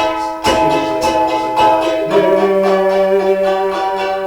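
Charango strummed in a slow steady rhythm, a stroke about every half second with the chords ringing on between strokes.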